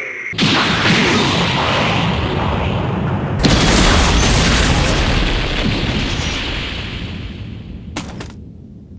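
Explosion-like boom sound effect in an animated fight: a dense rush of noise breaks in suddenly about half a second in, a heavier boom hits about three and a half seconds in, and it dies away slowly.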